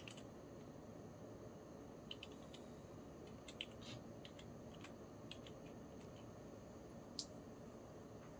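Sparse, quiet clicks of a computer keyboard and mouse being used, irregular keystrokes over a low steady room hum.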